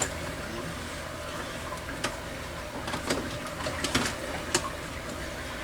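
Scattered light clicks and knocks of hand tools being handled while searching for a Phillips screwdriver, over a steady low background hum.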